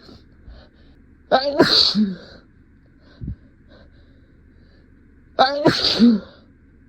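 A person sneezing twice: once just over a second in and again about four seconds later. Each sneeze is a rising, pitched wind-up breath, then a loud burst and a short voiced tail. The sneezes are deliberately induced.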